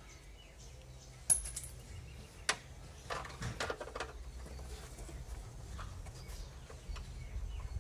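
Metal hand tools, a socket extension and spanner, clinking and rattling as they are handled: a sharp metallic clink about a second in, another about two and a half seconds in, then a quick run of small clicks and rattles.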